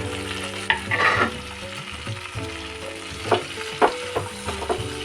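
Boneless chicken pieces sizzling in butter with chopped garlic and green chillies in a kadai. They are being stirred, and the spatula scrapes and knocks against the pan a few times.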